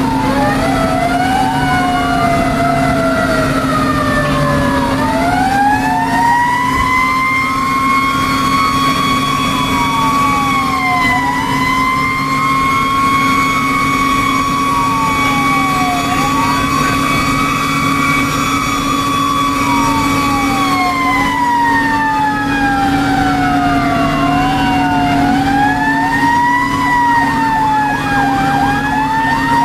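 Fire ladder truck's sirens sounding while it drives on a call, heard from inside the cab. One siren sweeps up and down every couple of seconds. A second siren winds up to a steady pitch, holds it, then winds down slowly and starts up again near the end. The truck's engine drones steadily underneath.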